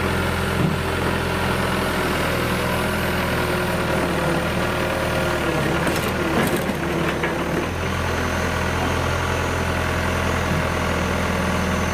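Heavy diesel engine idling steadily. Its note thins for a moment about six seconds in.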